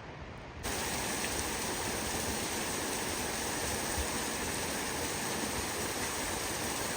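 Rushing water from a stream or small cascade, a steady hiss that cuts in abruptly about half a second in.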